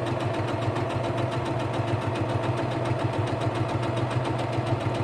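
Electric sewing machine running steadily, stitching a seam at an even speed with a rapid repeating needle tick over its motor hum.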